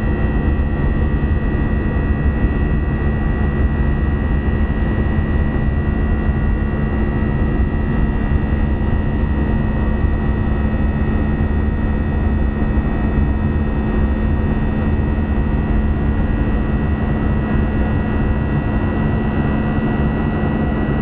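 Airbus A320 cabin noise in flight: the steady drone of the jet engines and rushing air, with a steady high whine over it.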